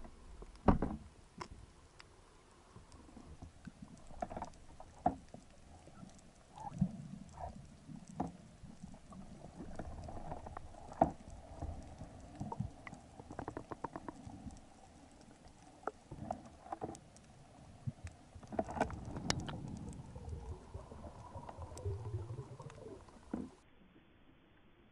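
Underwater sound picked up by a diver's camera: scattered clicks and knocks over a faint, steady hum. There is a loud knock right at the start and a thicker run of clicks about two-thirds of the way through.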